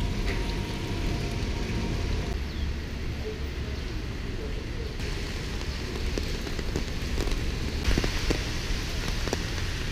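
Steady rain on a wet city street mixed with traffic hiss and low rumble. The ambience changes abruptly a few times, and a few sharp ticks come near the end.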